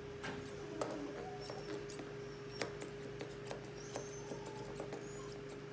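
Grooming scissors snipping the fur around an English Cocker puppy's front feet: a few light, sharp snips at uneven intervals. The puppy gives faint high-pitched whimpering squeaks between them.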